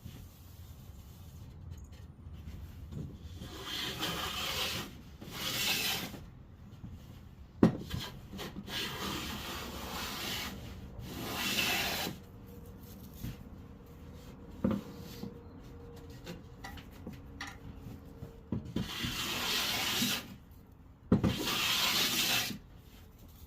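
Hand-worked strokes rubbing along red oak, about six of them, each lasting a second or two, with a few sharp knocks of wood between them.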